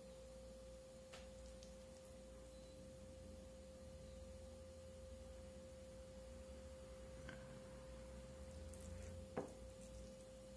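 Faint kitchen sounds of a serving spoon scooping cuscuz mixture from a frying pan and packing it into a tube pan: a few light clicks and one sharper knock near the end. Throughout there is a steady faint hum at one pitch.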